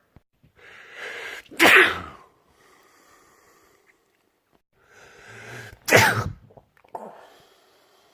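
A person sneezing loudly twice, each sneeze preceded by a drawn-in breath of about a second and ending in a sharp burst about four seconds apart; a shorter, quieter breath sound follows the second sneeze.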